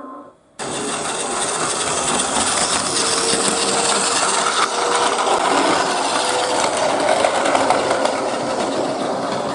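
A train running, heard as a steady rushing, rattling noise with a faint tone that slowly rises in pitch partway through.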